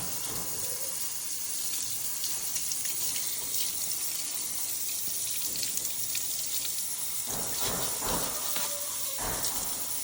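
Kitchen tap running and splashing as a dishwasher filter is rinsed and scrubbed in the sink, with a few knocks near the end.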